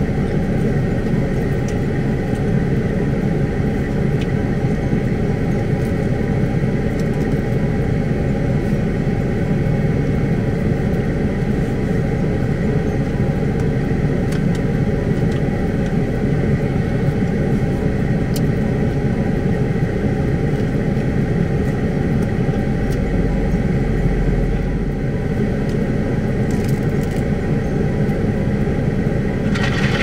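Vehicle engine idling steadily, heard from inside the cab, with a deeper low rumble swelling briefly about two-thirds of the way through.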